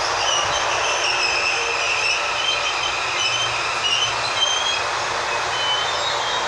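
CAF series 7000 electric multiple unit rolling slowly into the platform and braking to a stop, its running noise steady, with thin, wavering high-pitched squeals from the brakes and wheels on and off throughout.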